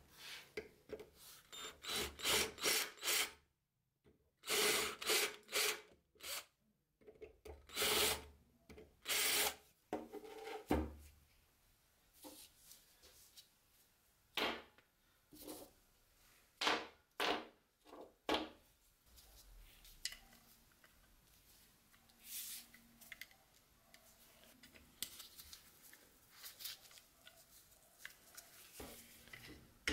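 Hand-working of small steel knife-handle bolster plates: rasping file and sandpaper strokes in quick groups with short pauses. The strokes are louder in roughly the first third, then quieter and sparser, mixed with light handling and rubbing.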